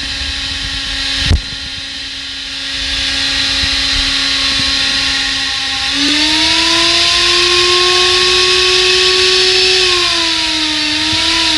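Small brushed DC motor running from a bench power supply, a steady whine over hiss. About six seconds in, its pitch steps up and it gets louder as the supply's current is turned up, and near the end the pitch slides back down as the current is turned down. One sharp click comes about a second in.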